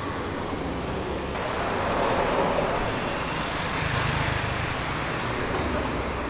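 Street traffic: cars and a scooter passing close by on the road, a steady rush of tyre and engine noise that swells about two seconds in and again around four seconds.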